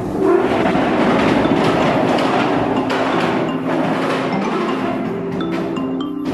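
Background music with a busy percussive pattern over held tones. It starts right after a brief dip in loudness.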